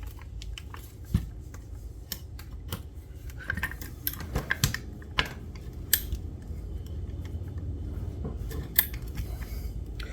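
Irregular metallic clicks and clanks as a direct-blowback 9mm AR-15 is opened up by hand and its bolt is taken out.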